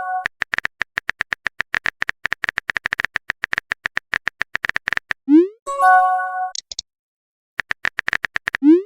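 Chat-app sound effects: a fast run of identical typing clicks, about eight a second, for some five seconds, then a short rising pop with a brief chime as a message appears. After a pause, a few more clicks and another rising pop near the end.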